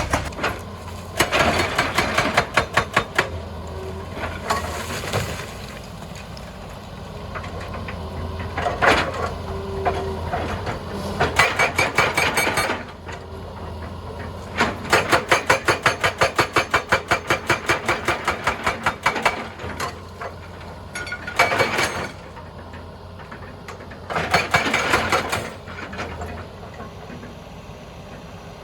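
Hydraulic rock breaker on a Hitachi EX200 excavator hammering rock in several bursts of rapid, even blows, with the excavator's diesel engine running steadily underneath.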